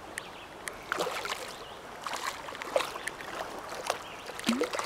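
Shallow creek water sloshing, with a string of small irregular splashes.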